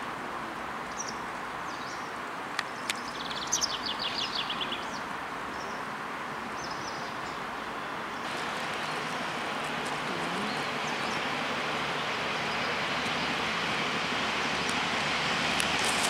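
Outdoor ambience: a steady hiss that grows slightly louder about halfway through, with a small bird trilling rapidly for about a second, three to five seconds in.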